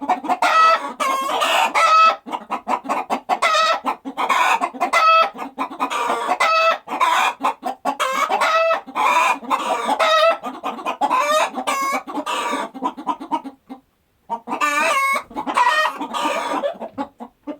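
Chickens clucking in a dense run of short, quick pitched calls that overlap one another, stopping briefly about fourteen seconds in before starting again.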